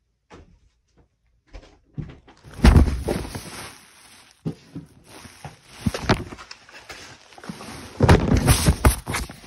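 Handling noise from a phone being carried and moved: rubbing and knocking against the microphone, with a heavy thump about two and a half seconds in and a cluster of loud bumps near the end.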